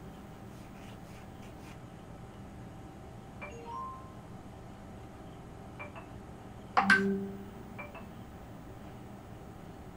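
A steady room hum, with a few faint taps and short ringing tones. About seven seconds in comes one sharp clink that rings briefly and fades within about a second.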